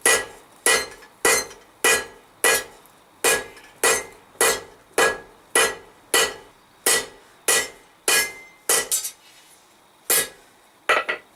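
Hand hammer striking hot 10 mm square steel bar on an anvil, drawing out a square taper: a steady run of about fifteen ringing blows, roughly one every 0.6 seconds, then a short pause and a few more blows near the end.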